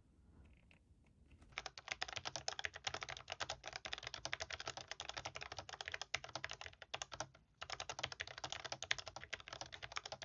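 Fast continuous typing on a Logitech G915 X low-profile mechanical keyboard, a dense run of key clicks. It starts about one and a half seconds in and breaks off briefly near the middle before going on.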